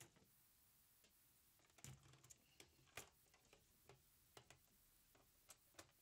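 Near silence, broken by a few faint clicks and light knocks from PlayStation 5 casing and metal chassis parts being handled, the clearest about two and three seconds in.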